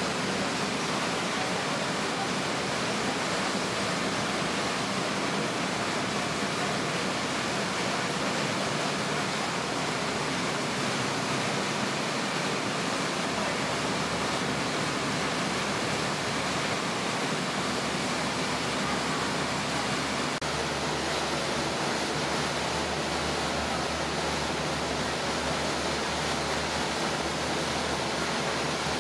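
Steady rushing of a motor boat's churning wake water behind the stern, mixed with strong wind over the boat.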